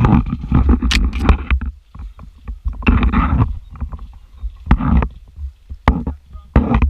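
Airsoft gun firing a few sharp single shots, heard over rustling, handling and wind rumble on the player's microphone as he moves.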